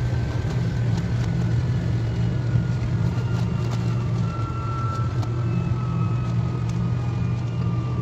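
KTX high-speed train running, heard as a steady low hum and rumble with a faint whine that slowly falls in pitch and a few light clicks.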